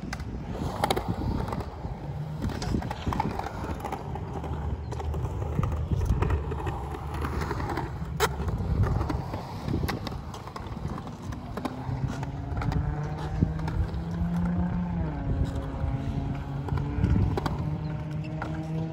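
Skateboard wheels rolling and carving on a concrete bowl: a low rumble with scattered clicks and knocks from the board. From about two-thirds of the way in, a humming tone with several pitches joins it, sliding a little up and down.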